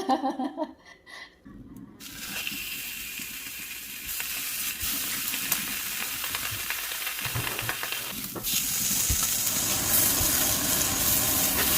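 Food sizzling in hot fat: a steady hiss that starts about two seconds in and grows louder past the middle.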